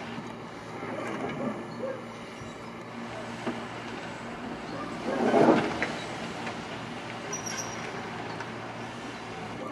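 Bobcat E19 mini excavator's diesel engine running steadily as its bucket pushes a steel road plate. A loud scrape of steel dragging over asphalt comes about five seconds in, with lighter scraping earlier.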